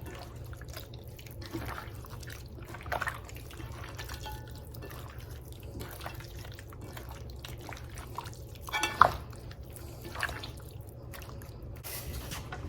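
Hands squeezing and turning raw chicken pieces in a bowl of marinade: scattered soft wet squelches and drips, louder about 3 and 9 seconds in, over a steady low hum.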